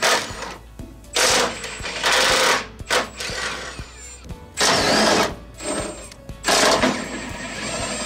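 Cordless impact wrench hammering in four short bursts, loosening the bolts that hold a car's front sway bar.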